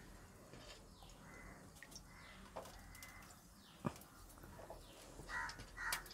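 Quiet pouring of oil from a plastic ladle into an earthen clay pot, with a sharp click of the ladle against the pot about four seconds in. A few short bird calls come near the end.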